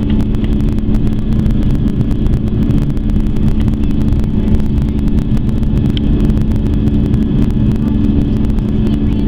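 Cabin noise aboard an Airbus A340-300: a steady, loud drone of its four CFM56 jet engines, with a low rumble and a constant hum underneath.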